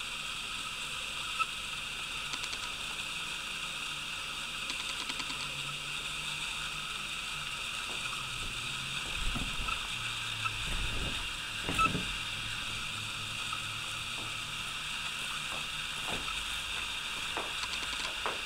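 Steady high-pitched background drone, with a few soft thumps and rustles on the sofa about halfway through as a cat pounces and scrambles on the fabric.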